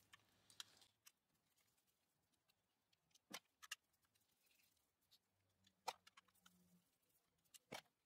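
Near silence broken by a handful of faint, scattered clicks and ticks: a small flathead screwdriver working the screws out of a car's plastic master window-switch housing.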